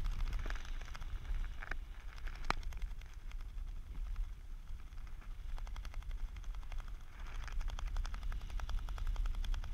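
Airflow buffeting the helmet camera's microphone under an open parachute canopy, a steady low rumble, with a couple of sharp clicks early and fabric fluttering in rapid ticks from about halfway through.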